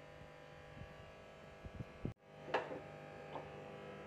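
Steady electrical buzz with a few faint knocks and a short scrape as a silicone spatula moves the thick bread laddu mixture out of a steel pan onto a plate; the sound drops out for an instant a little past halfway.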